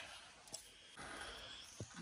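Faint handling noises from a resin-potted transformer chunk being worked by hand to break a piece off: a light click, then a short faint hiss about a second in, and a soft knock near the end.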